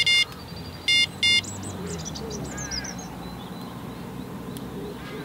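Electronic bite alarm giving short, loud, high beeps: one right at the start and a quick pair about a second in, as line is pulled through it on a rod the hooked fish has tangled. Small birds chirp briefly after the beeps.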